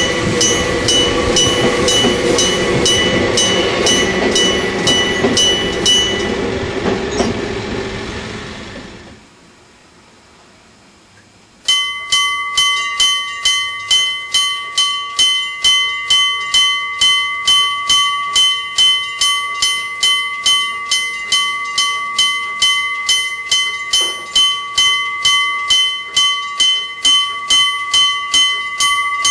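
Electric striker bell of a Japanese level crossing ringing in even strokes, about two a second, over the rumble of a passing train. The rumble and bell fade out about nine seconds in. After a short quiet gap, another crossing's electric bell starts abruptly about twelve seconds in and rings on steadily at about the same pace.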